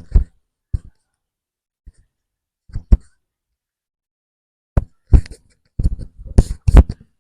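A series of irregular short thumps and knocks: a few scattered in the first three seconds, then a denser run of them from about five seconds in.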